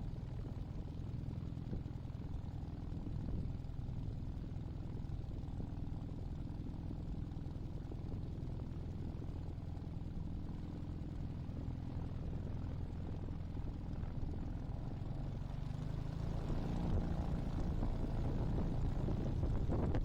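Small single-engine ultralight aircraft's Hummel engine and propeller running steadily at low power, growing louder over the last few seconds.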